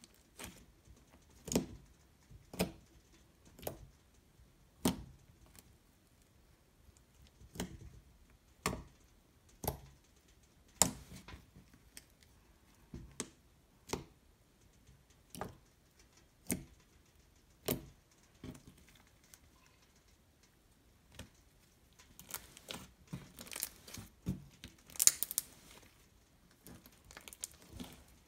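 Stretchy slime with foam beads being pressed and kneaded by hand on a table: sharp pops and clicks about once a second, then a denser crackling run near the end.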